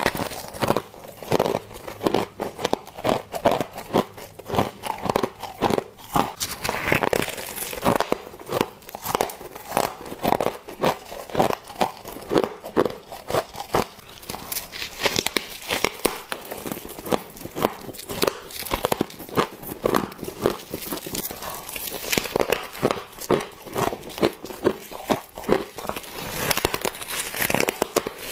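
Close-miked biting and chewing of soft frost, a dense, unbroken run of crisp crunches several a second.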